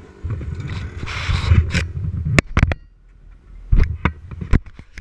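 Handling noise from an action camera being moved about: low rumbling rubbing for the first couple of seconds, then a string of sharp knocks and clicks against the housing.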